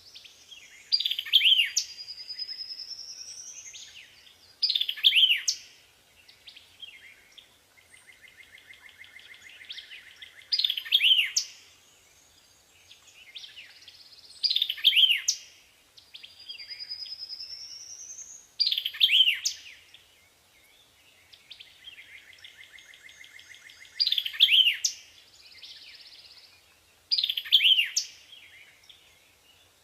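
White-eye (pleci) singing: loud phrases of quick falling chirps every few seconds, with a rising whistle and softer buzzy trills in between.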